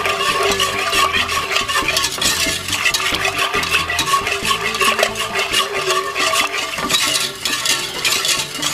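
Freshly added cornmeal being stirred in a pot of liquid, a utensil scraping and swishing against the pot in quick, continuous strokes. A steady hum runs underneath.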